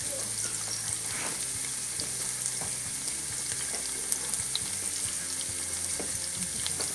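Sliced onion and whole spices (cinnamon sticks, cardamom pods) frying in hot oil in a stainless steel pan: a steady sizzle dotted with small crackles.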